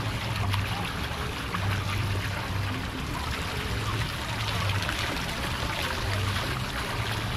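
Shallow water running and trickling steadily across a splash pad floor, with a low rumble that comes and goes underneath.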